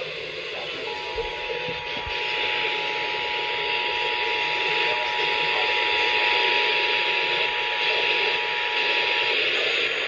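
Emergency Alert System attention signal, two steady tones sounding together, played over a weather alert radio's speaker through heavy static hiss. The tone drops out for about the first second, holds steady, then cuts off near the end, leaving only the static.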